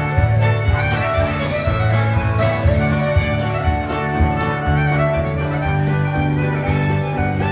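Fiddle dance tune with guitar backing, played at a steady, lively beat.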